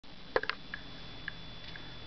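Two small sharp clicks about half a second in, then a few fainter ticks, over a steady low electrical hum.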